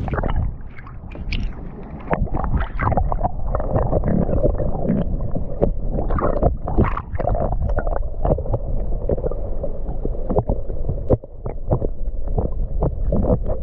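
Muffled water sloshing and slapping against a kayak, with many irregular knocks and bumps on the hull.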